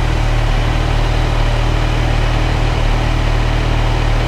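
Kawasaki Ninja 1000SX inline-four engine idling steadily.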